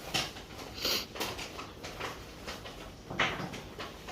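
Irregular eating noises close to the microphone: chewing and short mouth clicks, one louder about three seconds in.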